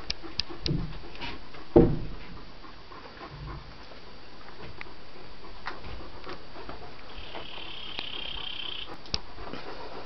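A dog panting, with one loud knock about two seconds in and a high hiss lasting a second and a half near the end.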